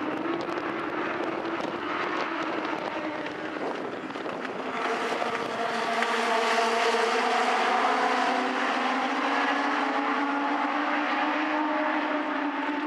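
A pack of Legends race cars, powered by Yamaha four-cylinder motorcycle engines, running hard as they pass in a group. Several engine notes overlap and slide up and down in pitch, growing louder about five seconds in.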